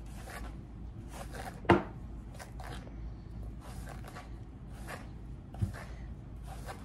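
A hairbrush drawn through long hair in repeated rasping strokes, about one or two a second. A sharp knock about two seconds in, and a lighter one near the end.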